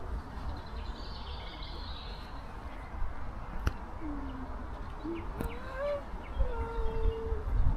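Outdoor park ambience: birds calling, faint high chirps in the first half and lower sliding and held calls in the second half, over a steady low rumble of wind, with faint distant voices and one sharp click.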